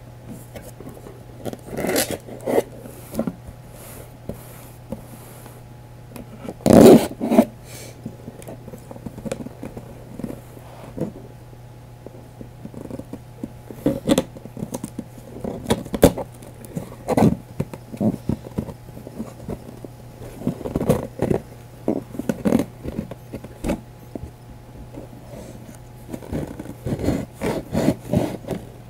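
Cardboard shipping box being opened by hand: irregular scraping, rubbing and rustling of cardboard, with a louder, longer scrape about seven seconds in.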